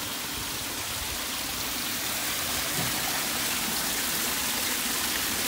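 Several thin streams of water pouring from wall spouts and splashing onto a metal drain grate, a steady splashing hiss.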